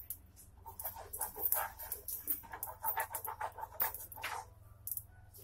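Steel spoon rubbing and scraping across an iron tawa in quick repeated strokes, spreading oil over the griddle, over a steady low hum.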